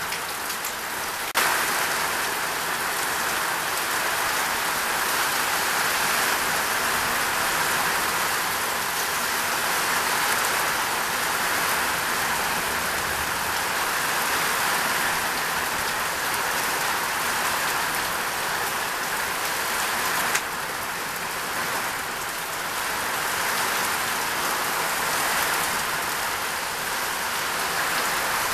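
Heavy rain pouring down steadily in a downpour. Its loudness jumps up suddenly about a second in and drops a little about twenty seconds in.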